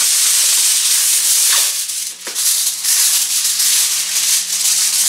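Sheet of aluminium foil crinkling and rustling continuously as it is handled and folded around corn, with a brief lull about two seconds in.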